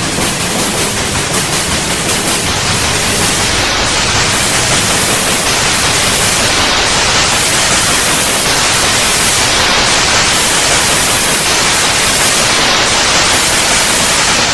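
Loud, steady static noise spread evenly from low to high pitches, with a faint pulsing in the first few seconds.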